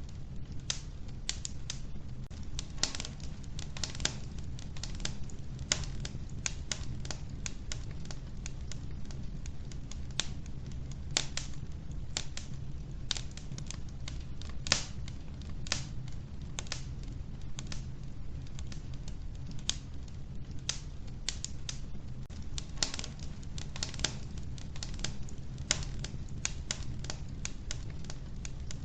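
Wood fire burning in an old wood-burning stove: irregular sharp crackles and pops from the logs, several a second, some louder, over a steady low rumble.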